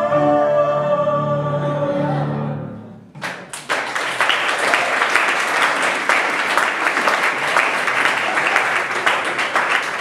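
A small ensemble of singers holds a final chord that fades out about three seconds in. Audience applause then breaks out and continues.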